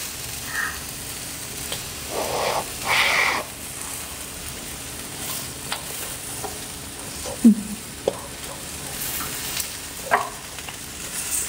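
Thin slices of beef sizzling on a hot grill plate, with chopsticks pushing and turning them. The sizzle swells in a couple of louder bursts about two to three seconds in, and a few sharp clicks of chopsticks on the pan follow later.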